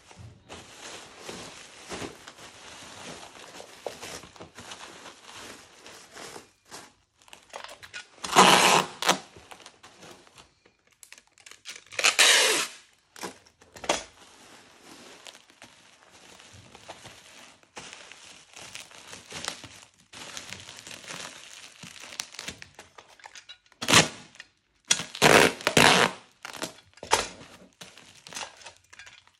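Packaging being handled, crinkling and rustling, with louder crumpling bursts about eight and twelve seconds in and several more near the end.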